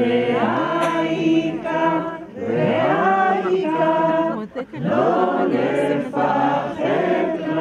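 Women singing a slow song, a voice through a handheld microphone leading, in long held notes that glide between pitches, sung in about three phrases with short breaks between them.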